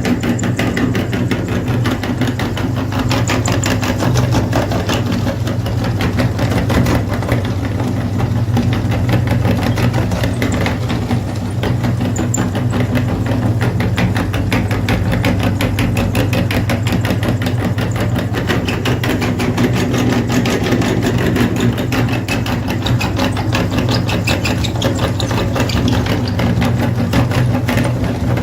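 Electric grinder's motor running steadily under load, a continuous low hum with a fine rapid rattle.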